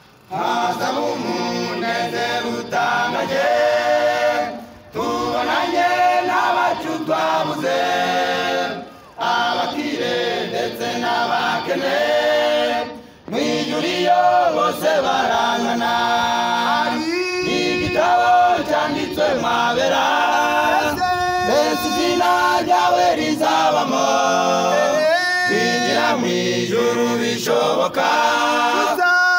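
A choir singing a hymn in several voices together, in phrases of a few seconds broken by short pauses, with little or no accompaniment.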